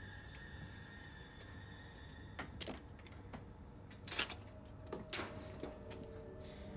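A few short, sharp clicks and knocks of objects being handled, the loudest about four seconds in, over a quiet sustained film-score tone that gives way to a low drone.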